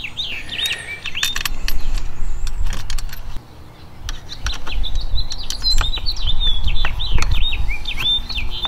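A small bird chirping repeatedly in quick rising and falling notes over a steady low rumble, with scattered light metallic clicks from an Allen key and a screw being worked into a bracket.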